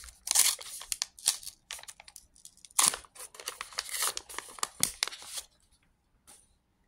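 A trading-card booster pack wrapper being torn open and crinkled by hand: a quick run of short tearing and rustling bursts that stops about five and a half seconds in.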